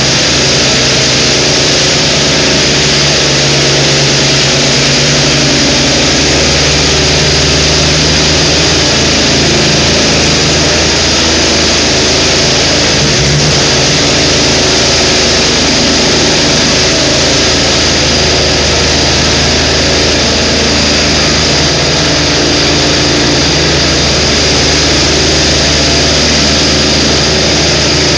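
Ride-on power trowel's engine running steadily under load as its twin rotors spin the trowel blades over fresh concrete.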